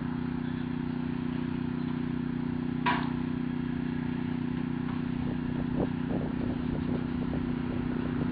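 Forklift engine running steadily at idle, with one sharp knock about three seconds in and a few lighter knocks later.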